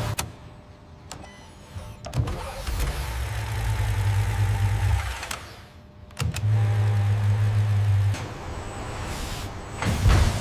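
A low electric-motor-like hum runs twice for about two seconds each, starting and stopping abruptly, with knocks between the runs and a heavy thump near the end.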